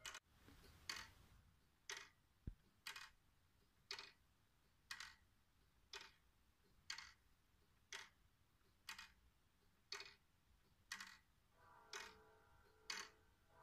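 Clock movement ticking evenly, about one tick a second: the escapement of a custom electric-wound, weight-driven clock's going train running.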